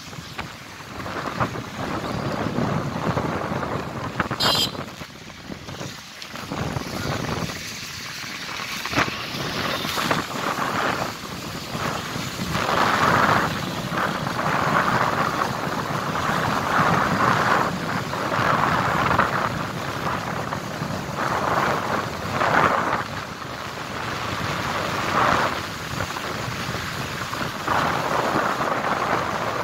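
Wind buffeting the microphone in uneven gusts over the rush of a swollen, muddy river in flood.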